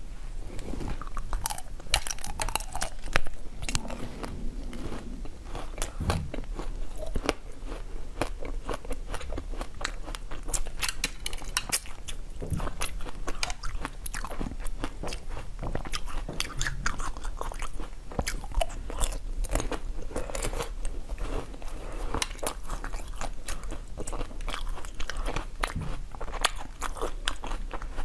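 Crunching bites and chewing of chocolate-coated frozen grapes, the hard chocolate shell cracking in many sharp crackles throughout.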